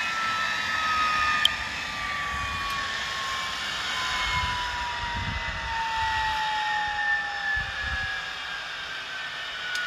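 Rolls-Royce Gem turboshaft engine running with a rushing jet noise and a high turbine whine that falls steadily in pitch as the engine slows. A sharp click comes about a second and a half in.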